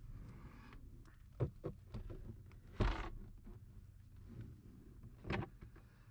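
A few scattered knocks and clicks of parts being handled in a car's interior over a faint low hum, the loudest knock about three seconds in.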